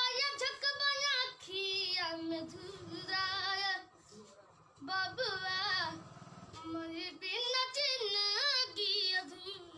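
A young boy singing unaccompanied, in several sung phrases with a wavering, ornamented pitch and a brief pause about four seconds in.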